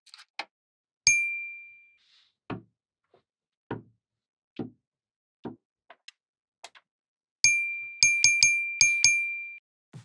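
A bright bell-like ding about a second in that rings on for most of a second. Then four or five soft knocks of magnetic-ball pieces and a plastic tray being set down on a tabletop, and near the end a quick run of five or six more dings.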